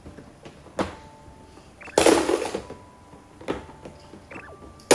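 Scattered knocks and a short, louder rattling clatter about two seconds in: toy cars in a toddler's hands bumping and scraping against a plastic ride-on toy car.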